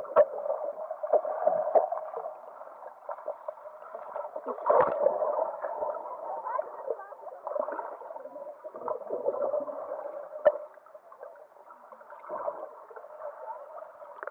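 Muffled underwater sound of a swimming pool through a submerged camera: bubbling and gurgling as people move in the water, with occasional sharp knocks, the sharpest about ten and a half seconds in.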